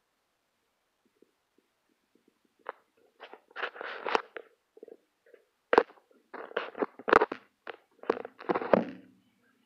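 Handling noise on a phone's microphone: a run of knocks, scrapes and rubbing close to the mic as the phone is brought down to the ground beside a cat. The sharpest knocks come in the second half.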